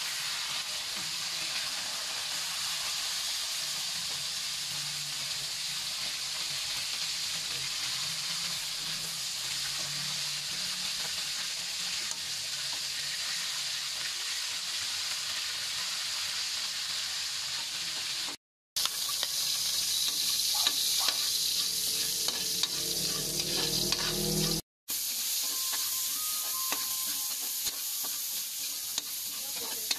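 Oil sizzling steadily in a stainless-steel wok as fish fry, and later sliced onion and garlic. In the later part a metal spatula scrapes and clicks against the wok as it stirs. The sound cuts out abruptly twice.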